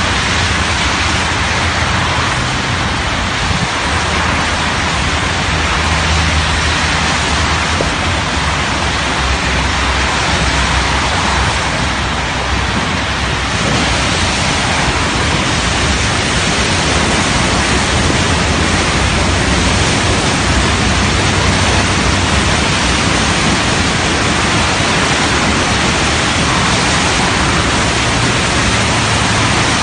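Steady, loud rushing noise of floodwater pouring down a concrete highway channel, mixed with rain and cars passing on the wet road.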